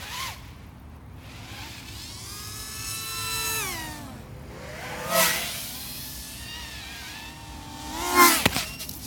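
FPV racing quadcopter's electric motors whining, pitch rising and falling with the throttle. It makes two close fly-bys, about five seconds in and near the end, each louder with a sharp drop in pitch as it passes.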